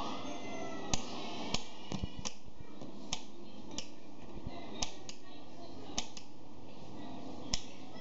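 A paddle-style rocker wall light switch being flicked on and off over and over: about ten sharp clicks at uneven intervals, over a steady hiss.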